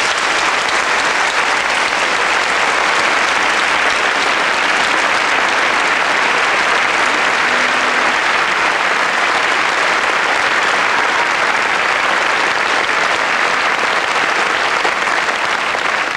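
Audience of a full theatre applauding steadily, a dense unbroken clapping.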